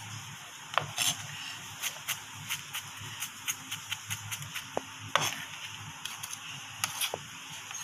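Chef's knife mincing onion on a plastic cutting board: irregular sharp knife taps on the board, a few strokes a second with short pauses.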